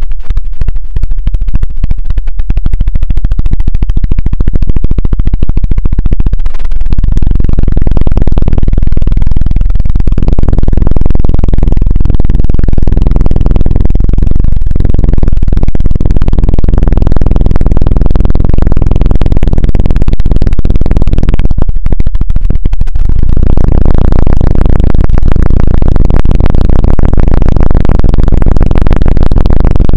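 ASMR "helicopter" sound: fingers rapidly tapping and rubbing on a microphone's head make a fast, dense, low throbbing that is very loud. It grows fuller about a quarter of the way in and dips briefly about three quarters of the way in.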